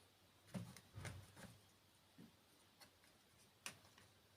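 Near silence with a few faint knocks and clicks as small plastic parts are handled: a cluster of soft knocks in the first second and a half and one sharper click near the end.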